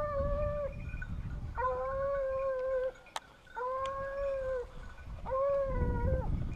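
A hunting dog baying on a wild boar hunt: four long, level howls of about a second each with short pauses between them, over a low rumble on the microphone.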